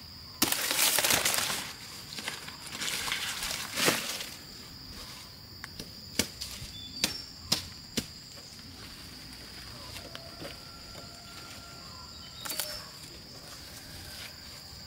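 Dry sugar cane leaves and stalks rustling and thrashing as purple sugar cane is pulled down, loudest in the first two seconds and again briefly near the end. In the middle come four sharp knocks about half a second apart as the base of the cane clump is worked.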